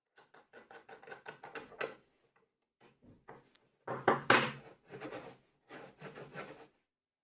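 Short knocks and clatter of wood and metal parts being handled, in bursts. The loudest clatter comes about four seconds in.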